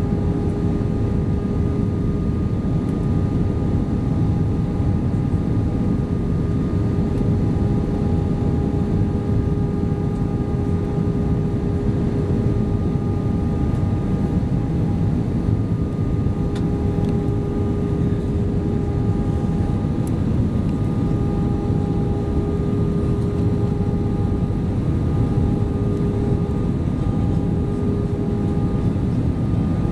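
Steady cabin noise heard from a window seat over the wing of an Airbus A320-232 on approach: a dense rumble of its IAE V2500 turbofans and the airflow, with a steady hum running through it and a higher tone that fades in and out.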